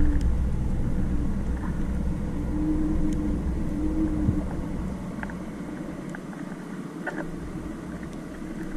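Underwater ambient noise on a freedive descent: a low steady rumble with a steady hum that comes and goes in the first half. Both fade after about five seconds, leaving a few faint clicks.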